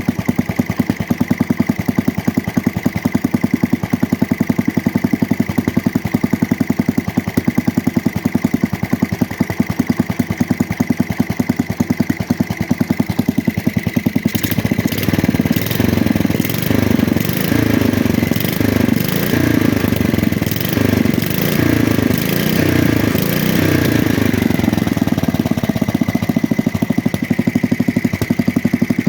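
Small engine from a 1966 Custom 6 garden tractor running on its own, its cylinder freshly cleaned of water. About halfway through its speed picks up and wavers up and down for several seconds, then settles back to a steady run.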